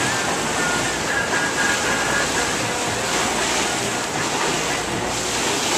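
Ocean waves surging and breaking against rocks, a steady wash of surf, with wind buffeting the microphone.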